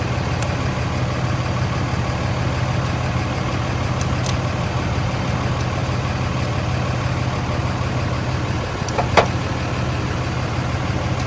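A truck engine idling steadily, with two brief clicks about four and nine seconds in, the second louder.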